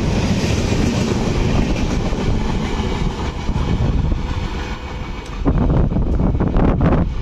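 An Indian express train's passenger coaches rushing past at speed, wheels clattering over the rails, then the tail of the train pulling away. From about five and a half seconds in, gusts of the train's wake buffet the microphone.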